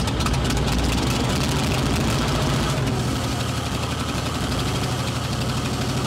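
A vehicle engine idling steadily, with an even, rapid firing pulse.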